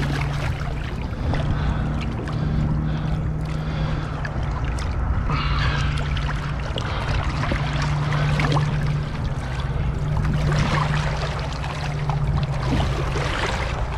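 A boat's motor idling with a steady low hum, with water lapping.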